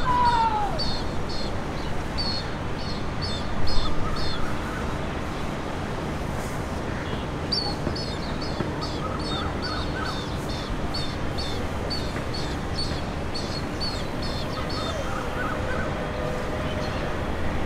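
A bird chirping in quick runs, about three short high notes a second, the first run stopping about four seconds in and a second run going from about seven to fifteen seconds in. Under it is a steady low rumble of a jet airliner's engines at taxi idle.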